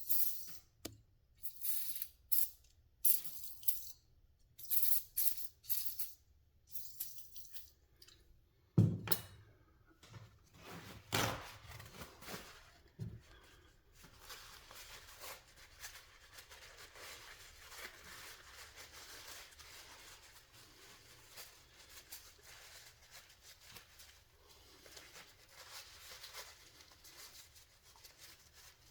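Clicks, light knocks and scrapes of small metal parts being handled as a torque wrench's ratchet head is taken apart and cleaned of sticky grease, with a sharper knock about nine seconds in. From about halfway on there is a steady soft hiss.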